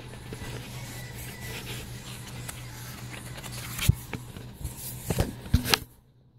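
A photo book and its packaging being handled: rustling and scraping, with a few sharp taps and knocks in the second half. The sound stops abruptly just before the end.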